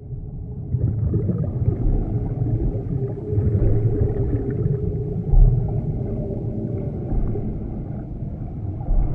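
Sound-design drone: a deep, continuous rumble with a low steady tone and faint moaning tones over it, and a deep low hit about halfway through.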